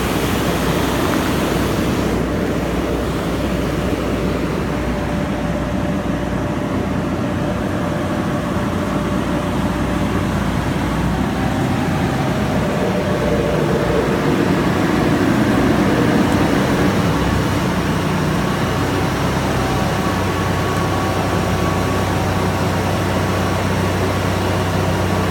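A Trilectron 20-ton aircraft ground air-conditioning unit running steadily. It swells a little louder about halfway through, then settles with a steady low hum.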